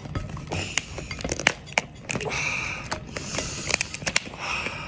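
Cooked lobster's shell being pried and torn apart by hand: a string of sharp cracks and snaps, with crunchy crackling as the body shell separates.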